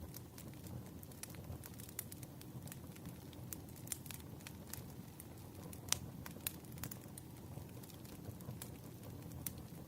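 Campfire crackling: a low steady rush of burning with irregular sharp pops and snaps, one louder pop about six seconds in.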